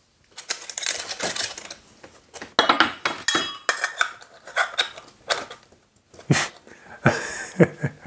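Stainless sheet-metal heat gun nozzles clinking and scraping against each other and against the gun's metal barrel as they are pushed on and pulled off by hand: an irregular run of sharp metallic clicks and rattles.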